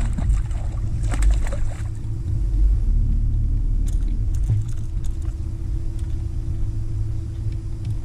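Steady low rumble of wind buffeting an action camera's microphone on an open boat deck, with a faint steady hum underneath and a short noisy splash-like burst about a second in.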